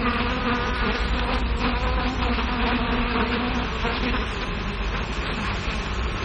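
Steady hiss and low hum of an early sound-film soundtrack, with a faint buzzing tone over the first three to four seconds.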